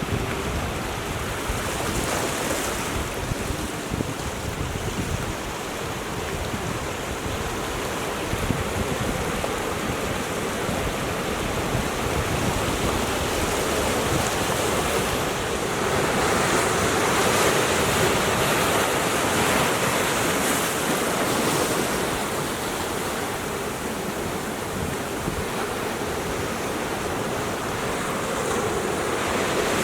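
Ocean surf washing against a rocky shore as a continuous wash that swells louder about halfway through and again near the end, with wind rumbling on the microphone.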